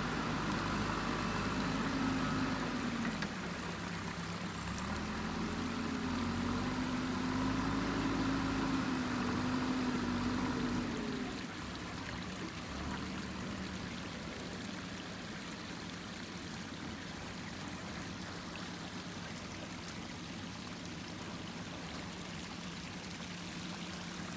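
Diesel engine of an earthmoving machine working, its pitch rising and falling with load, then dropping to a quieter steady hum about eleven seconds in, with a steady rushing hiss throughout.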